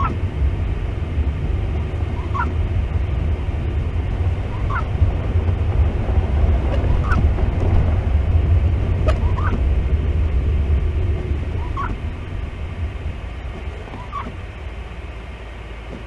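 Car's low rumble of engine and tyres driving on snow, with a short squeak about every two and a half seconds that fits the windshield wiper blades sweeping the glass. The rumble eases over the last few seconds as the car slows almost to a stop.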